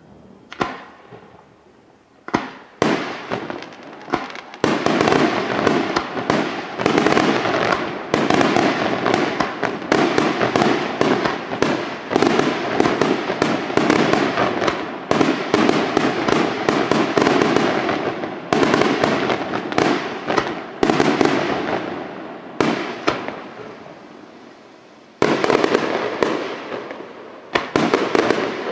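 Aerial fireworks display: a few separate shell bursts, then from about four seconds in a dense run of rapid bangs and crackling that thins out after the middle, with a short lull before more bursts near the end.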